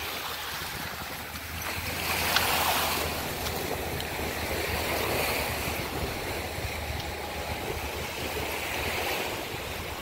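Small ocean surf washing in around the shore, a steady rushing hiss that swells about two seconds in and again around five seconds.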